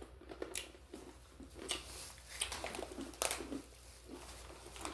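People biting and chewing crunchy pretzel bites: irregular crisp crunches every fraction of a second.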